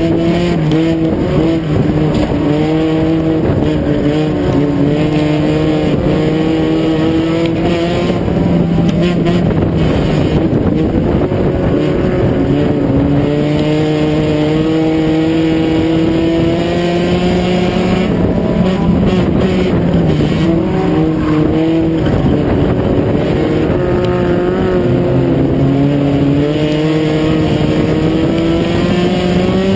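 Dirt-track race car engine at race pace, heard from inside the cockpit: the pitch climbs steadily down each straight and falls off as the driver lifts for the turns, over and over, lap after lap.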